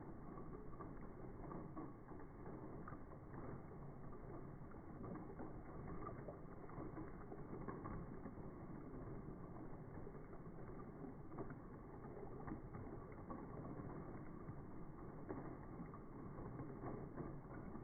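Slowed-down, deep-pitched sound of a thin stream of liquid pouring into a full glass of frothy drink: a steady low muffled rumble scattered with faint pattering clicks.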